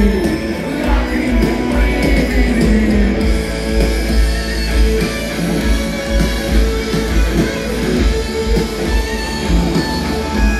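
Live rock band playing through a concert PA, heard from among the audience: guitars over a steady drum beat.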